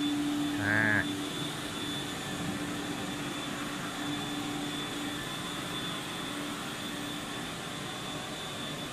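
Two walk-behind carpet-cleaning machines running together, a steady motor drone with a steady hum and a faint high whine. The hum weakens after about five seconds. A brief voice calls out about a second in.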